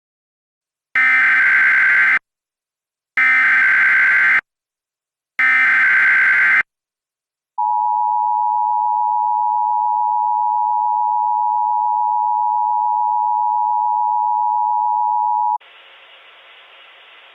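Emergency Alert System tones: three short bursts of SAME header data, each about a second long, then the steady two-tone EAS attention signal for about eight seconds, which cuts off into a faint hiss. These are the tones that open an EAS alert.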